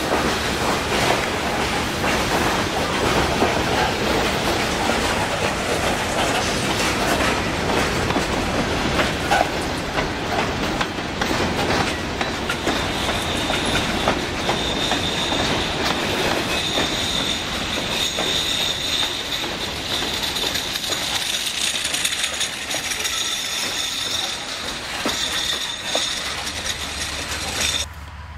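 Loaded freight hopper cars rolling past close by, their wheels clattering over the rail joints. About halfway through a steady high-pitched wheel squeal joins in; the sound drops off suddenly just before the end.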